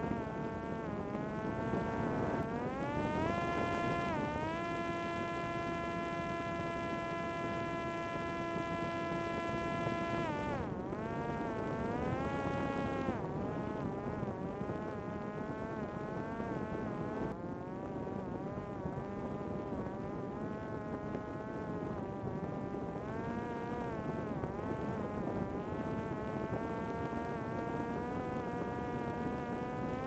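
Parrot Disco fixed-wing drone's electric motor and rear pusher propeller whining in flight. The pitch rises about three seconds in, holds steady for several seconds, then drops and wavers up and down with the throttle, over a rush of wind noise.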